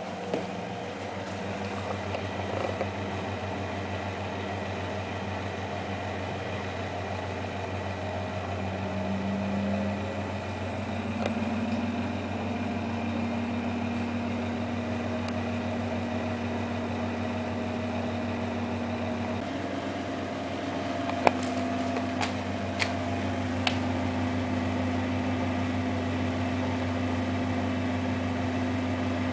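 Miele Hydromatic W734 washing machine running a wash, its motor humming steadily as the drum turns; the motor's pitch steps up about a third of the way in and again after the middle. A few sharp clicks come shortly after that.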